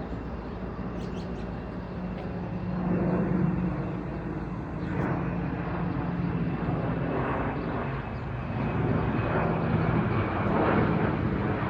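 A fixed-wing aircraft's engines make a steady drone with a hum underneath. The sound grows louder in swells, most of all toward the end.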